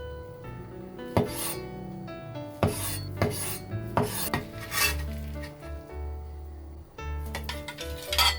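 Kitchen food-prep sounds over background music: several sharp knocks and scraping, rasping strokes.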